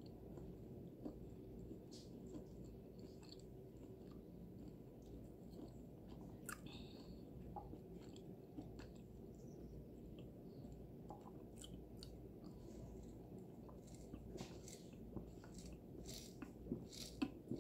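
Faint close-miked chewing of fried chicken with the mouth closed, small wet clicks scattered over a low steady room hum. Near the end come a few louder clicks as she sips a drink through a straw.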